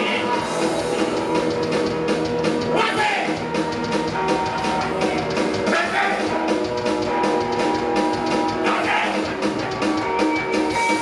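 Rock band playing a song, with drum kit and guitar, at a steady full level.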